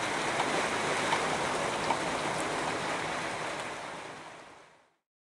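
Heavy rain falling steadily, a dense hiss with a few scattered drop ticks. It fades out shortly before the end.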